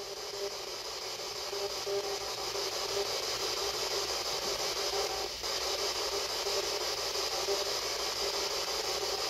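Spirit box radio scanner sweeping through stations: a steady hiss of static broken by faint, choppy snatches of tone.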